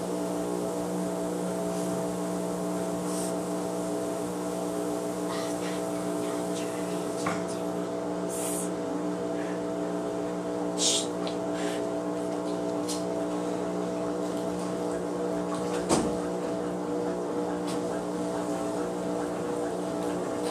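Front-loading washing machine running with a steady motor hum, broken by a couple of short hisses about eight and eleven seconds in and a single knock near the end.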